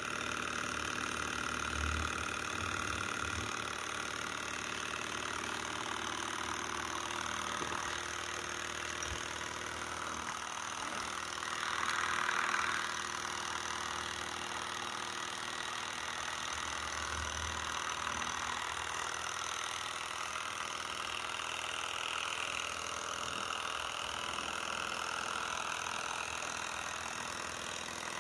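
Bohm HB14 twin Stirling engine running steadily, its flywheels, linkages and ball-bearing crankshaft making a continuous mechanical running noise. A brief louder hiss swells up about twelve seconds in.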